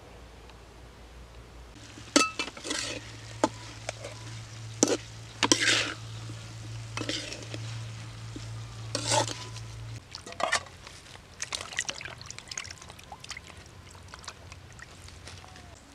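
A metal spatula scraping and clanking against a wok as pork and tomato slices are stir-fried, in sharp strokes about once a second. About ten seconds in, it gives way to softer splashing as hands wash meat in a bowl of water.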